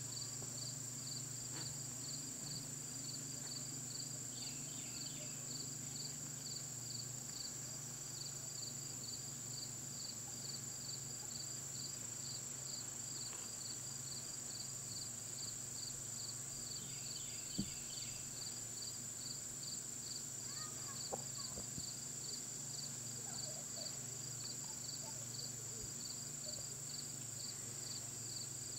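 Crickets and other insects chirping steadily: a constant high drone with a pulsing chirp about twice a second. A few faint short chirps, and one sharp click a little past halfway.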